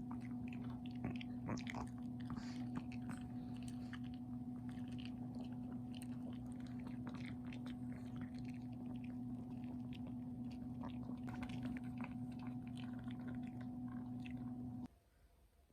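Dog chewing and biting, with many short irregular crunches, over the steady hum of an electric appliance; the hum cuts off suddenly near the end.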